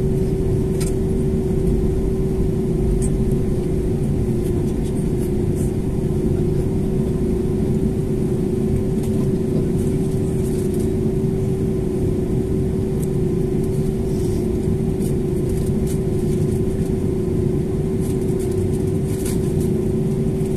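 Airbus A320neo cabin noise during taxi, heard inside the cabin by the wing: its Pratt & Whitney PW1100G geared turbofans run at taxi power as a steady rumble with a constant mid-pitched hum.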